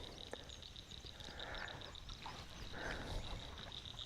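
Frogs calling in a steady, high, rapidly pulsing trill. Twice there is a soft rustle in the middle of it.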